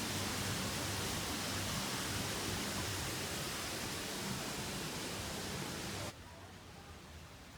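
Steady rushing outdoor noise with no distinct events, cut off suddenly about six seconds in by a quieter, duller hiss.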